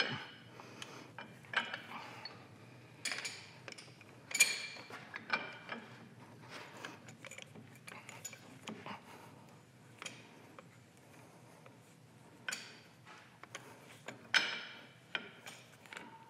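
Cast iron hand wheel clinking and scraping against the steel jaws of a four-jaw lathe chuck as it is turned and pressed into place by hand. Irregular metal clinks and knocks, the loudest about four seconds in and again near the end.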